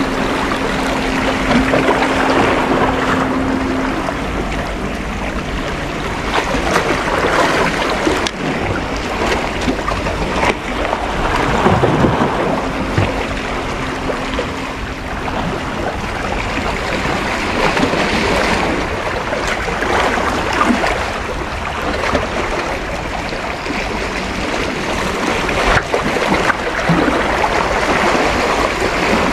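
Sea waves washing against the rocks of a breakwater, with wind buffeting the microphone: a steady, dense rush of noise. A faint low hum sits under it at the start and again about halfway through.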